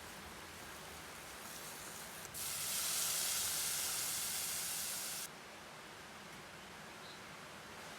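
A steady hiss lasting about three seconds, starting and stopping abruptly.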